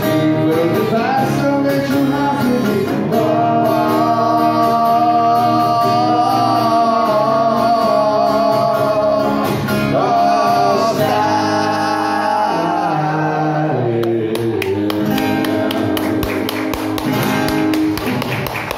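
Live acoustic rock duo: two guitars strummed while a voice sings through a microphone, holding long notes in the middle of the passage.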